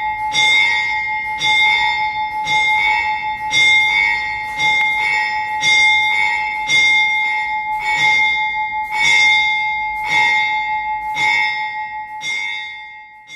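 A single church bell tolling, struck roughly once a second for about a dozen strokes at an unchanging pitch, each ring carrying into the next; the last one dies away near the end.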